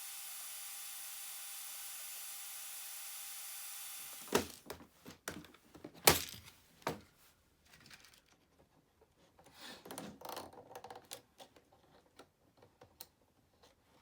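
A steady hiss, then from about four seconds in a string of irregular clicks and knocks with some rustling, as the plastic parts of a Roomba 780 robot vacuum are handled and worked on during disassembly.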